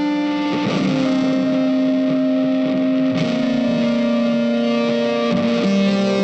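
Background music: sustained, distorted electric guitar notes changing pitch every second or so.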